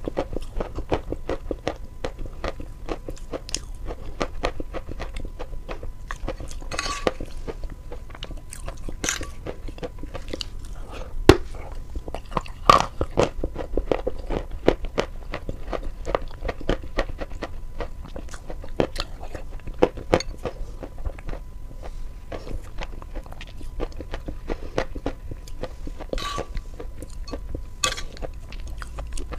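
Close-miked chewing and crunching of sawn chalk coated in paste: a dense run of crisp, gritty crunches, with a few louder bites about halfway through.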